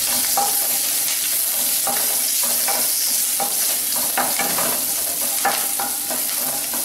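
Ginger, garlic and green chillies sizzling in a little oil in a nonstick kadai, frying until their raw smell goes. A steady hiss runs under repeated scrapes and taps of a wooden spatula stirring them against the pan, about two a second.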